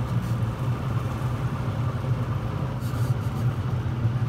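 Boat engine running steadily at trolling speed, a low even drone.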